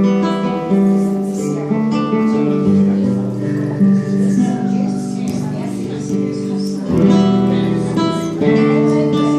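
Live Brazilian viola (a folk guitar) playing strummed chords and ringing notes, with fresh strums near the start and twice more near the end.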